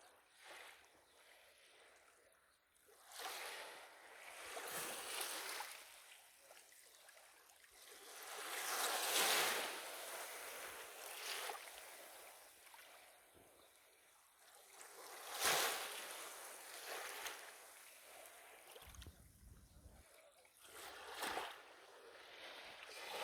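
Black Sea waves breaking and washing up the shore, the wash swelling and fading in surges every few seconds.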